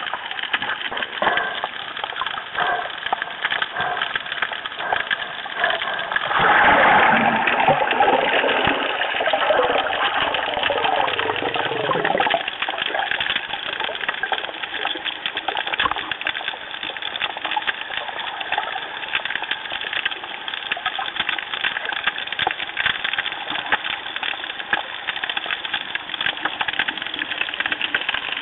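Underwater sound picked up by an action camera: a steady dense crackle of small clicks, with a louder gurgling, watery stretch from about six to twelve seconds in.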